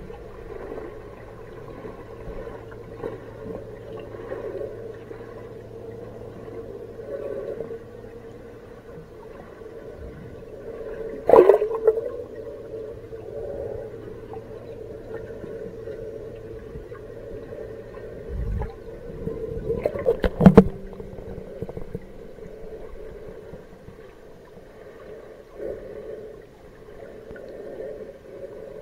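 Muffled underwater sound in a large aquarium tank: a steady low hum with faint gurgling, broken by sharp knocks about 11 seconds in and again around 20 seconds in, where there are two close together.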